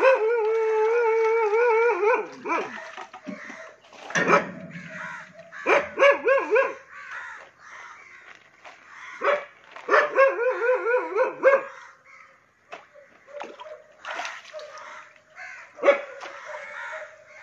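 A dog whining and barking: a long, wavering whine at the start, then quick runs of yelping barks about six and ten seconds in.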